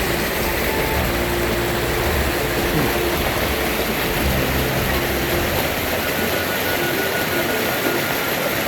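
Steady rushing of a river and waterfall, falling water making an even, unbroken noise, with a faint thin tone near the end.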